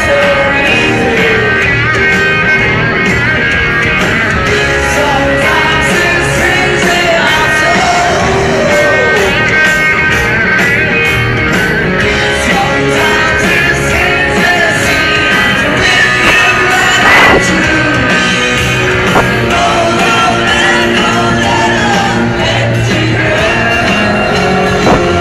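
Live rock band playing loud through a PA, with a singer, electric guitars and a steady drum beat, heard from within the audience.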